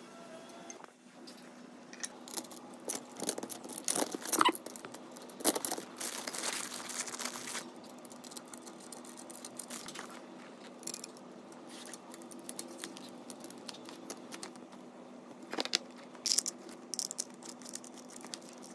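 Plastic packaging bags crinkling and rustling as ab roller parts are handled, with sharp clicks and taps of the plastic and metal parts and bolts during assembly. The crinkling is densest and loudest a few seconds in, with a few scattered clicks later on.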